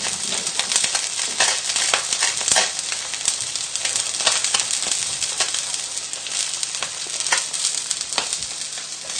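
Trout fillets frying skin-side down in a hot frying pan on high heat: a steady sizzling hiss with frequent small crackling pops as the skin crisps.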